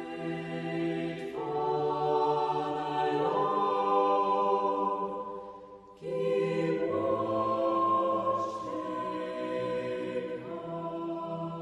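A choir singing slow, held chords in a chant-like sacred style, the notes shifting every second or two. The singing breaks off briefly about six seconds in, then a new phrase begins.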